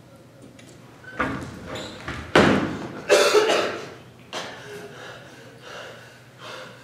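A door thuds about a second in, then slams loudly just after two seconds as it is thrown open. A brief, loud human vocal sound follows.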